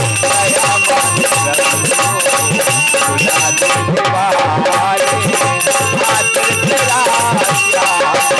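Instrumental break in Indian devotional folk music (a bhajan): a hand drum playing a steady beat with bending bass strokes, a rattle or shaker, and held melody notes, without singing.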